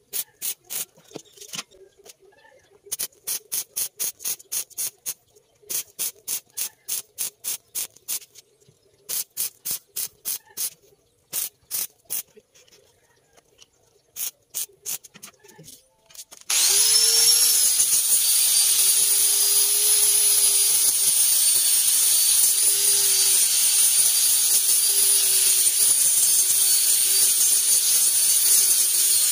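Short crackling bursts of wire-feed welding fired off in quick trains of stitch welds, about four or five a second with brief pauses between runs. A little past halfway an angle grinder spins up with a rising whine and runs steadily against the steel plate of the table top.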